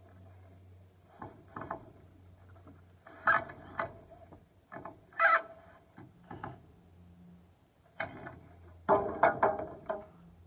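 Several short bursts of mechanical rattling and clicking as a wooden coop wall is taken apart. The longest and densest burst comes near the end.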